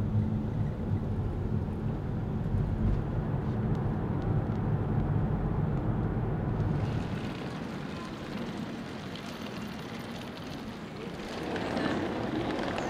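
Road and engine noise heard from inside a moving vehicle's cabin, a steady low rumble, giving way about seven seconds in to quieter outdoor ambience that swells again near the end.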